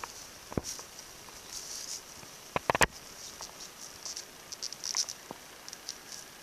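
Shiny metallic ribbon streamers rustling and crinkling as they are shaken and batted by a kitten, with a few sharp taps and clicks; the loudest cluster of clicks comes a little before the middle.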